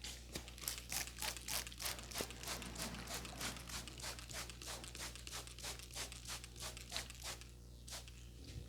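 Head massage: hands rubbing over a person's scalp and hair in quick, rustling rhythmic strokes, about three a second, which stop about seven and a half seconds in.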